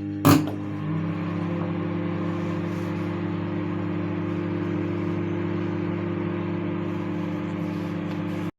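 Microwave oven running with a steady electrical hum while heating a bowl of water, with one sharp click just after the start; the hum cuts off suddenly near the end.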